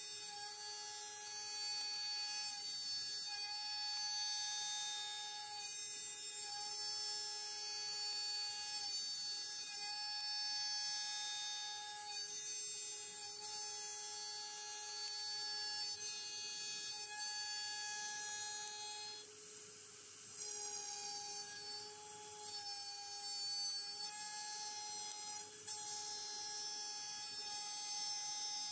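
CNC router running a job: whining stepper-motor tones that break off and start again every second or two, shifting slightly in pitch as the moves change, under a higher whine with a faint hiss.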